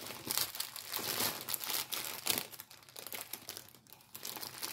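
Clear plastic bags of diamond-painting drills crinkling as they are handled and sorted, in irregular crackly bursts that ease off briefly a little before the end.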